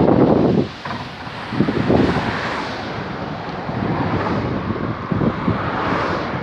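Wind buffeting the microphone in irregular gusts, strongest in the first half-second, over a steady rushing background noise.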